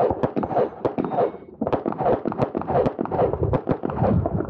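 Handgun shots fired in quick strings during an IPSC stage run, each sharp crack followed by a short echo, with a brief break about a second and a half in.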